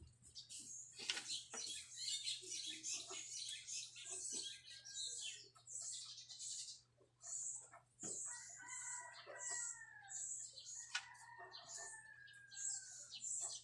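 A rooster crowing twice in the background, each crow a drawn-out call of over a second. Throughout, a felt-tip marker makes short repeated scratchy strokes on paper as it colours.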